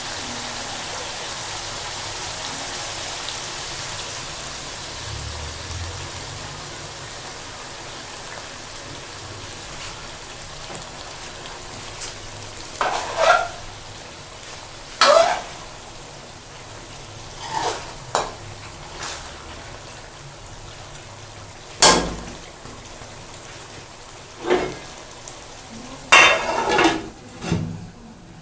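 Chicken malai gravy sizzling in the pot on a medium flame, the hiss slowly dying down. Through the second half, a utensil clinks and scrapes against the pot several times.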